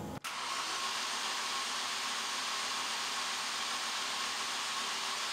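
A 2008 Ford Focus's four-cylinder engine cranking on the starter with a steady, even whir, without the rhythmic chug of compression strokes: the engine has no compression, which the owner puts down to a bad timing chain.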